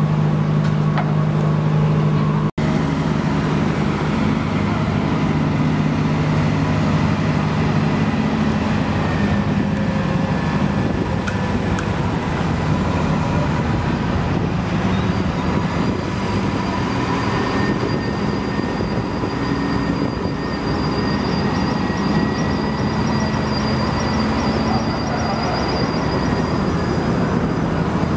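Heavy diesel construction machinery running, a steady drone with a deep hum, broken by a momentary dropout about two and a half seconds in.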